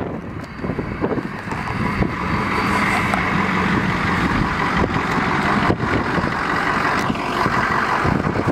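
A vehicle running steadily, a continuous rumble that swells about a second in and then holds.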